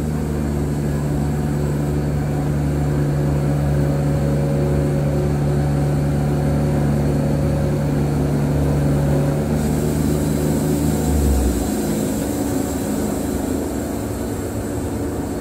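Wood-Mizer band sawmill running: its motor and drive give a steady low drone that drops away about three-quarters through, leaving a thinner hum.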